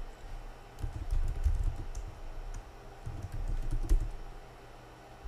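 Typing on a computer keyboard: two short runs of keystrokes, one starting about a second in and one about three seconds in, the second ending on a sharper key press near four seconds.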